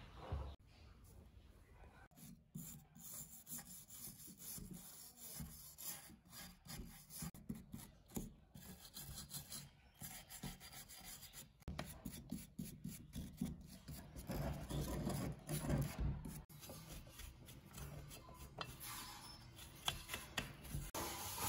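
A hand tool scraping and rubbing caked dirt and rust off the corroded metal housing of an old electric hurricane lamp, in many short, irregular strokes, with a louder stretch about two-thirds of the way through.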